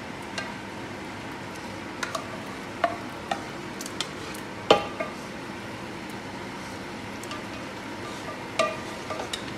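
Kitchen utensils knocking against cookware as masala and fish are layered onto biryani rice: a slotted spatula and an aluminium pressure cooker clink and scrape against a nonstick pot in scattered knocks, the sharpest about halfway through, over a steady background hum.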